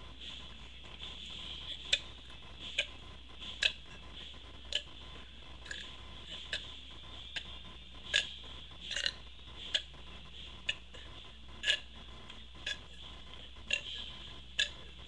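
A series of short, sharp clicks, roughly one a second but unevenly spaced, a few of them doubled, over a faint steady hum.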